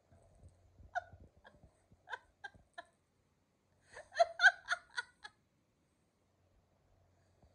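A person laughing: a few separate high giggles in the first three seconds, then a quick run of about six laughs around four to five seconds in.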